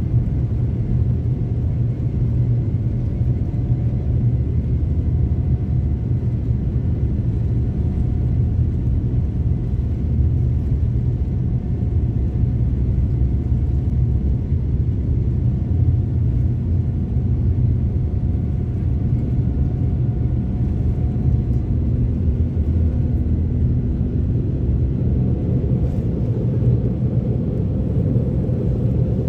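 Boeing 787-9 cabin noise beside the wing while the jet rolls on the ground: a steady low rumble with faint whining tones from the GEnx-1B engines. One whine climbs slightly near the end.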